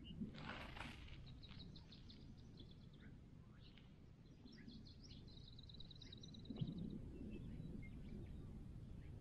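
Small birds calling faintly: scattered short chirps and a rapid trill about six seconds in, over a low rumble of outdoor noise. A brief rush of noise comes just under a second in.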